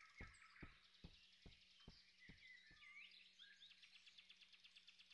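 Faint birdsong ambience of small birds chirping, with soft thuds about two or three a second that fade away over the first couple of seconds.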